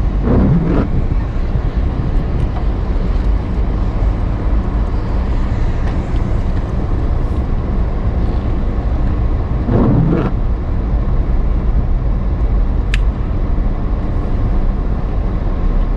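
2006 Chevy Silverado pickup running, heard from inside the cab: a steady low engine rumble. A sharp click comes about thirteen seconds in.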